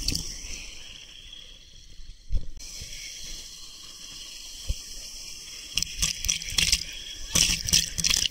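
Water rushing down an open water slide and splashing over the camera during a ride, with a run of sharp splashes near the end.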